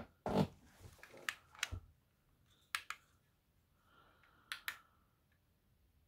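A handful of faint, sharp clicks, mostly in close pairs, spaced a second or more apart.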